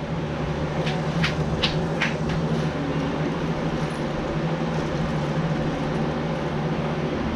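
Steady machine hum with four light clicks between one and two seconds in.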